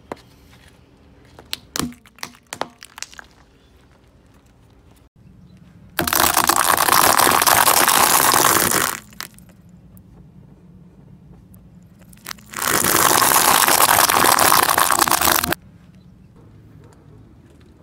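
Car tyre crushing things: a plastic container gives a few sharp cracks in the first few seconds. Then dry pasta shells crunch under the tyre in two loud runs of dense crackling, each about three seconds long, with a pause between them.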